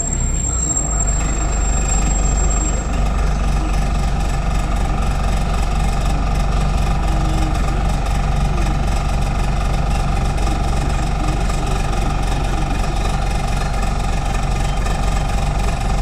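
LAZ city bus running, a steady, even drone with a thin high whine that stops about three seconds in.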